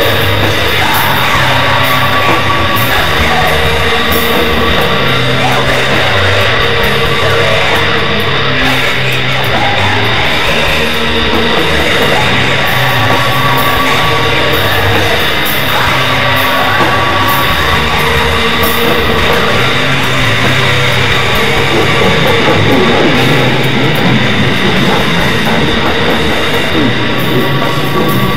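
Raw doom/black metal music: a dense, steady wall of distorted guitar over slowly changing low notes, with cymbal hits.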